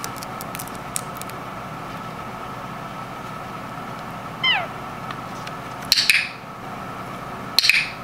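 An Indian ringneck parakeet gives one short falling squeak about halfway through, then two loud, sharp clacks of a training clicker a second and a half apart, marking the bird's pull on the foraging toy's cord for a reward. A few faint ticks sound in the first second.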